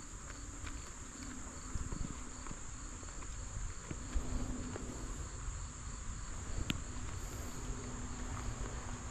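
Steady high-pitched insect chorus, with low rumble underneath and a single sharp click about two-thirds of the way through.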